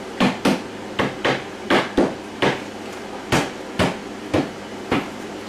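Hammer lightly tapping the top panel of an IKEA KULLEN chest of drawers down onto its dowels: about eleven sharp knocks, roughly two a second at an uneven pace.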